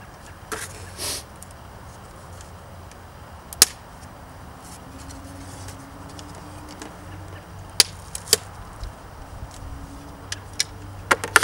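Sharp plastic clicks and snaps as the chrome surround of a BMW F30 kidney grille is pried off its black plastic frame with a small screwdriver, tab by tab: single clicks about a third of the way in, a pair about two-thirds through, and a quick cluster near the end, with a brief rustle of handling near the start.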